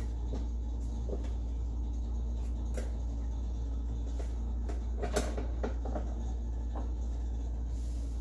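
Scattered light clicks and knocks of a rotisserie spit being worked out of an air fryer oven, the loudest about five seconds in, over a steady low hum.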